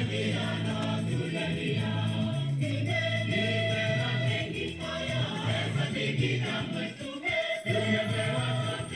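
Gospel-style choir singing with musical accompaniment, the voices holding long notes that change every second or so.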